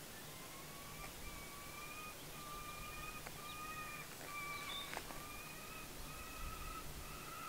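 A bird calling in a long, even series of drawn-out notes, each about half a second long and slightly rising, a little more than one per second, sounding faint over still water.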